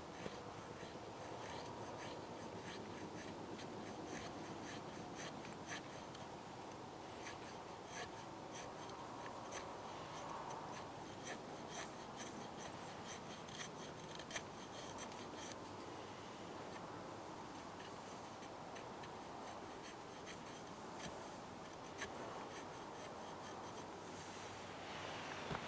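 Knife blade shaving thin curls off a small dry stick to make feather sticks: a long run of quiet, short scraping strokes.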